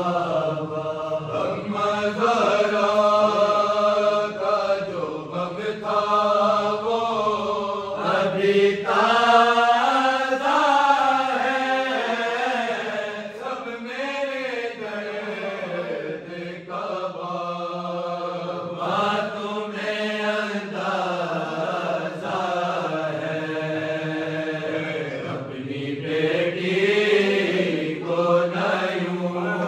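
A group of men reciting an Urdu noha, a Shia mourning lament, in a slow melodic chant with long held notes.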